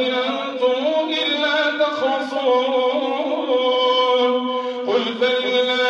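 A man's voice chanting Quran recitation in a slow melodic line, drawing out long held notes, with a brief break about five seconds in.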